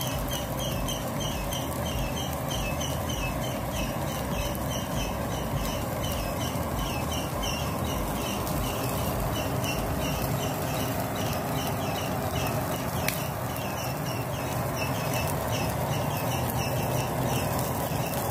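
Marinated chicken pieces sizzling steadily on a wire grill over a charcoal chulha, with a bird chirping a few times a second in the background.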